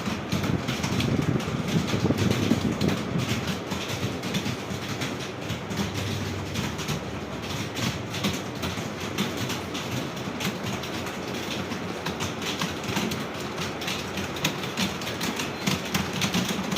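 Many computer keyboards typed on at once, a dense, continuous clatter of overlapping keystrokes with no pauses.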